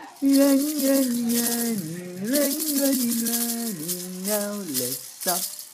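An adult voice singing a slow tune in long held notes that slide between pitches, with a rattle shaken in repeated bursts over it.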